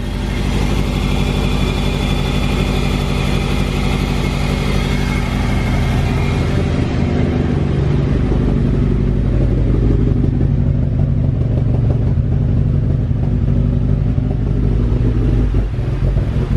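Turbocharged Mitsubishi Lancer's four-cylinder engine running at a rough, unsteady idle just after a jump-started cold start in below-freezing weather; it sounds really weird, as if it is about to stall. The owner puts the rough idle down to the car sitting unused for two weeks in the cold.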